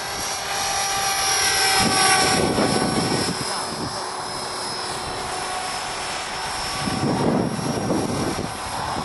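Electric RC collective-pitch helicopter in flight, its motor and rotor whining at a steady pitch. The sound swells louder twice, about two and seven seconds in.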